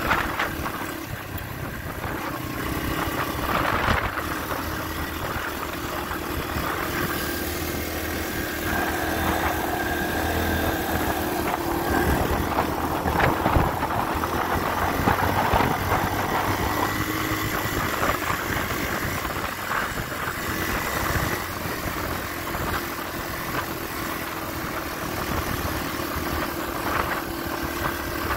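Yamaha dirt bike engine running steadily while being ridden, its pitch shifting up and down a few times.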